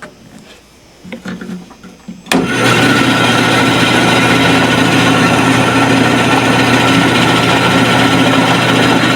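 Small workshop bandsaw switched on about two seconds in, then running steadily with a motor hum and the whir of the blade. Faint handling sounds come before it starts.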